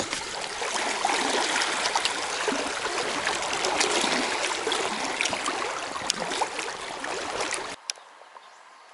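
Shallow river riffle rushing and splashing around an inflatable raft drifting through it. The rushing cuts off abruptly near the end, leaving only faint, much quieter water.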